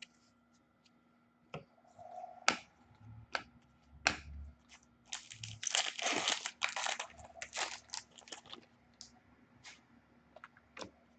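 Trading cards and their packaging being handled: scattered clicks and crinkling, crackly rustles, busiest around the middle.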